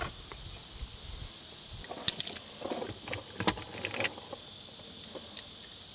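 A few light clicks and clinks of a key ring and fob being handled, bunched between about two and four seconds in, over a steady high hiss.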